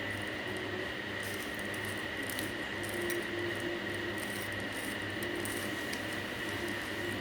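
Plastic layers of a 3x3 Rubik's cube being turned, with faint, irregular clicks, over a steady hiss with a thin high whine and a low hum.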